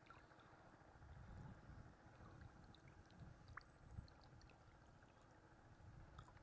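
Faint water lapping and sloshing, with a few small ticks scattered through it.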